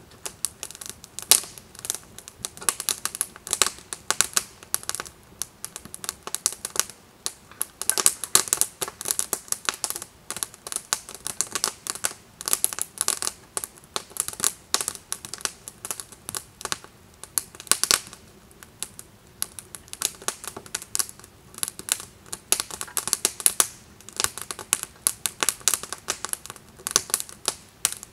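Wood campfire of split kindling crackling and popping, a dense, irregular run of sharp snaps.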